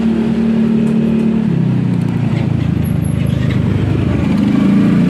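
Road vehicle engine running. Its pitch drops about a second and a half in as it slows, then rises again near the end as it speeds up.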